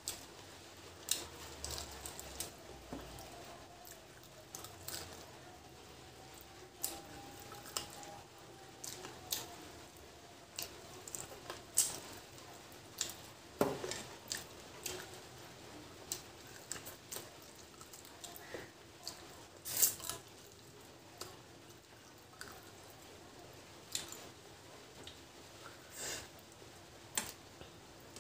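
Eating by hand: wet chewing and lip smacks with irregular sharp clicks, and fingers squishing rice and curry against a steel plate.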